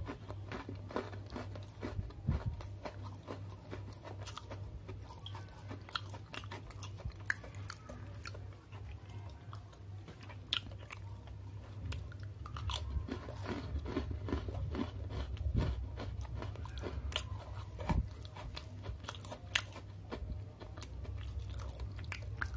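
A person biting and chewing a crunchy Oreo chocolate sandwich cookie close to the microphone, with sharp crunches scattered through, over a steady low hum.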